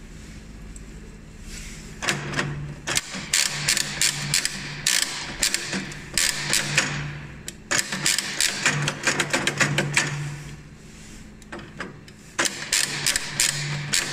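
The coin mechanism of a mechanical capsule vending machine is turned by hand, its ratchet clicking in rapid runs with a pause of a couple of seconds between them. A Chupa-Chups lollipop stick has been pushed into the slot in place of a coin, and the mechanism turns anyway: a fault the owner cures by stripping and cleaning the coin mechanism's pawls.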